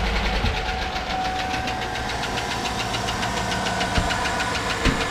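2008 Chevrolet Tahoe's 5.3-litre V8 idling just after start-up, with a fast, regular knock ticking over the idle. The owner takes it for more of a knock than a lifter noise and blames a hardened oil pickup tube O-ring and low oil pressure rather than a collapsed AFM lifter. A couple of faint thumps come near the end.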